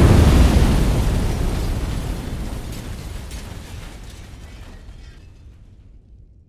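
Building demolition explosion sound effect: a heavy blast rumble that fades away steadily over about six seconds, with scattered debris crackles in the tail.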